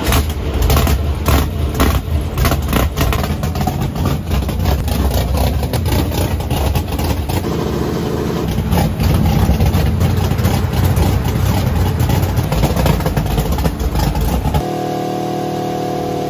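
Drag car engine running on a hub dyno, loud and rough, with sharp pops in the first few seconds. About fourteen seconds in, the low rumble drops away and a steadier humming tone is left.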